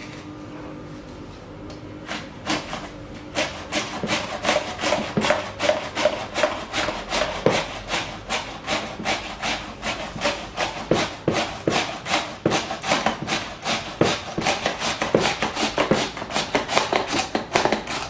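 A vegetable held in a plastic hand guard pushed rapidly back and forth across a plastic mandoline slicer's blade, a scrape with each stroke. The strokes begin about two seconds in and run at about three a second.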